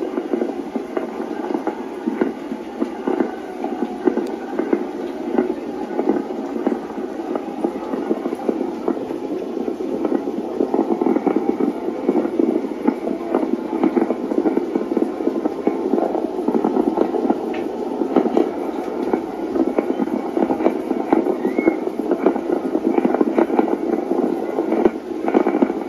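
Many distant fireworks and firecrackers going off at once, a continuous dense crackling and popping.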